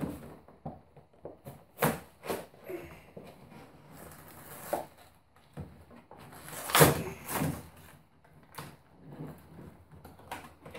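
Cardboard and plastic toy packaging being torn open and handled: irregular crackles, rips and knocks, the loudest and longest about seven seconds in.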